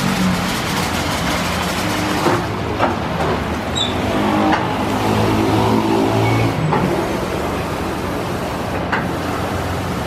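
Istobal M'Start rollover car wash at work: rotating brushes scrubbing a car amid spraying and running water, over a steady mechanical hum from the gantry, with a few brief knocks along the way.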